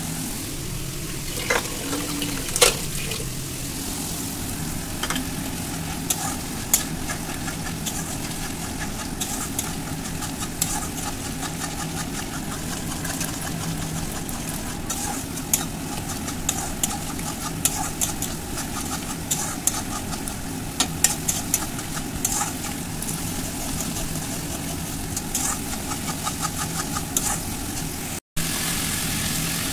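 A metal spatula stirs and scrapes thick chicken masala frying in a steel kadai. The masala sizzles, and the spatula knocks against the pan in many short clicks, over a steady low hum.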